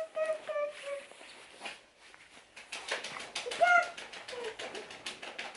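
A dog whining in short, high, slightly falling whines, over the rustle and clicks of a padded snowsuit being handled.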